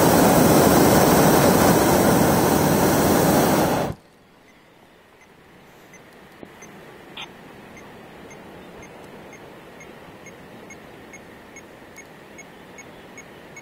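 Hot-air balloon's propane burner firing in one loud blast that cuts off sharply about four seconds in. After it, only a low hush with faint regular ticking, about two ticks a second.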